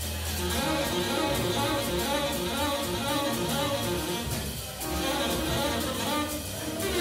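Live small-group jazz with horns, piano, upright bass and drums playing a blues, a line of quick notes running over the bass and the cymbals.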